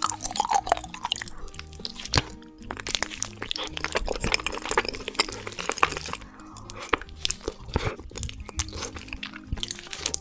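Close-miked eating of spicy braised beef feet: biting and chewing that make many quick, irregular sharp clicks, over background music with a repeating bass line.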